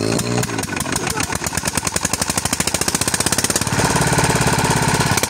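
Single-cylinder Peter-type stationary diesel engine firing up. Its exhaust beats come faster over the first few seconds, then settle into a fast, steady thumping after about three and a half seconds.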